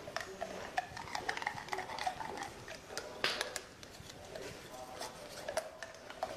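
Golden retriever licking at a small treat on a stick held to its mouth: a run of soft, wet licks and lip smacks.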